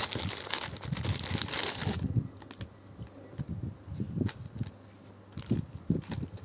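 Clear plastic bag crinkling as a T-shirt is pulled out of it, for about the first two seconds; after that, quieter fabric rustling with soft thumps as the shirt is handled and shaken open.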